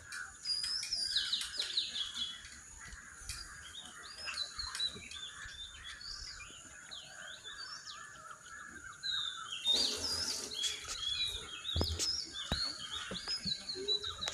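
Many birds chirping and calling over one another in short whistles and trills, over a steady high thin tone. From about ten seconds in a rushing noise rises under the birdsong, with a few soft knocks.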